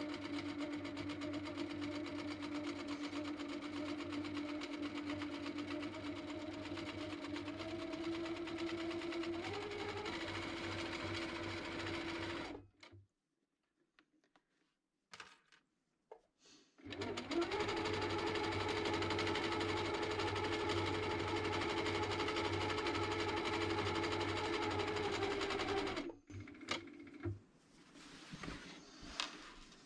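Sewing machine stitching through a quilted fabric pad at a steady speed, picking up a little about ten seconds in. It stops about halfway, starts again a few seconds later, and stops near the end, followed by a few short taps.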